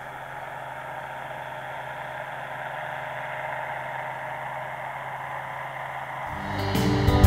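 Powered parachute's engine and propeller droning steadily, heard from the ground as a low hum with a hiss over it.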